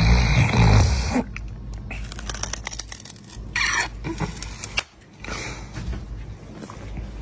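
One loud snore in about the first second, followed by quieter scattered clicks and rustling.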